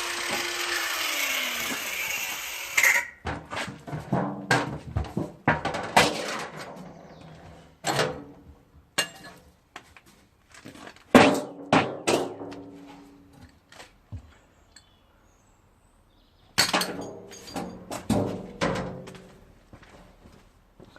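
A power tool runs and cuts off abruptly about three seconds in. Then comes a series of separate metallic knocks and clanks, some with a short ringing after them, spaced out with pauses, as of a metal object being handled and knocked on a workbench.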